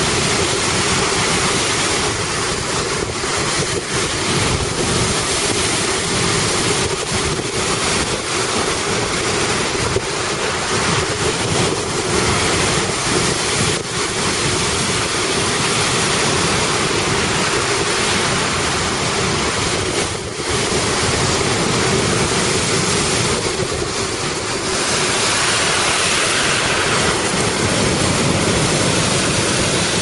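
Storm waves on Lake Superior breaking and churning in heavy surf, with strong gusting wind blowing on the microphone.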